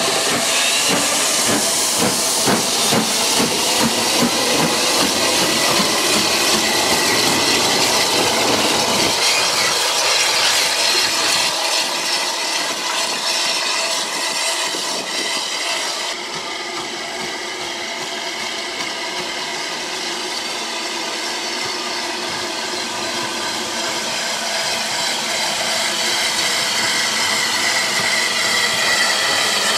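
Southern Railway S15-class steam locomotive No. 847 moving slowly, with a constant loud hiss of steam and a low rhythmic beat through the first nine seconds or so. The sound eases off in the middle, then grows slowly louder again near the end as the engine approaches.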